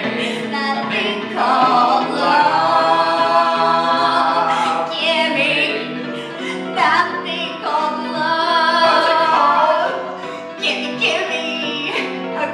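Singing over musical accompaniment, with long held notes.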